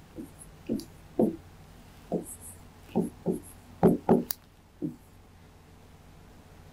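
A pen knocking and stroking against a writing board as graph axes are drawn: a series of short, dull knocks, the loudest two about four seconds in, then only a steady low hum.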